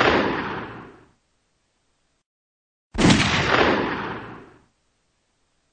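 Bang sound effect played twice: the tail of one blast dies away about a second in, then after dead silence an identical sudden bang hits about three seconds in and fades over about a second and a half.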